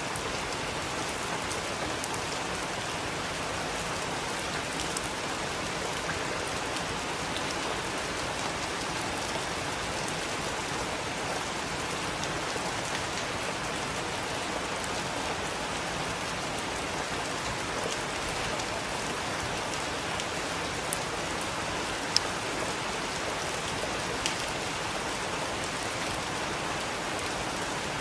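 Steady heavy rain falling and splashing on surfaces, with a few sharp drip ticks about three-quarters of the way through.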